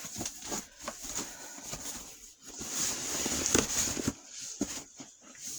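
Rustling and small plastic clicks from handling yarn skeins and clothespins as skeins are clipped up and moved along, with a cluster of sharper ticks around the middle.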